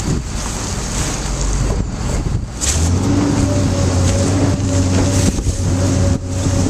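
V500 mill-size baler's hydraulic motor running: rough, clattering noise at first, then about three seconds in a steady, pitched hum sets in as the machine comes under load and holds.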